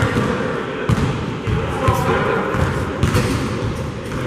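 A basketball bouncing on a court during play, several thuds about a second apart, over the steady noise of the gym with indistinct voices.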